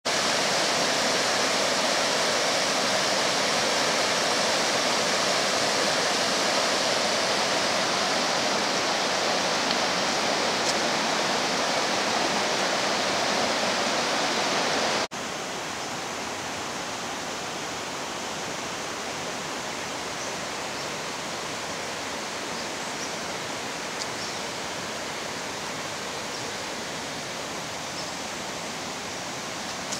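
Mountain stream rushing steadily over rocks. About halfway through, the rush drops suddenly to a quieter level and goes on steadily.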